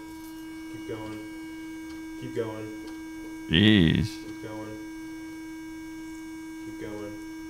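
Steady hum from the breath-test instrument running while a man blows into its hose mouthpiece. A short, loud sound cuts in about three and a half seconds in, and faint short voice-like sounds come every second or two.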